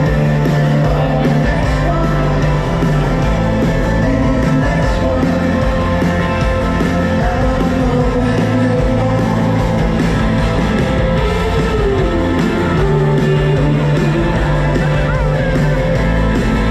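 Live rock band playing a song, with guitar, bass and a singing voice, steady and loud throughout.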